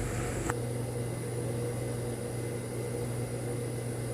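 Steady electric motor hum from a high-speed sewing machine left running without stitching, with one faint click about half a second in.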